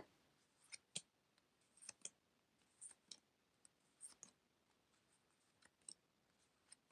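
Faint, scattered clicks and light taps of collectible trading cards being handled and set down, roughly one every second, against near silence.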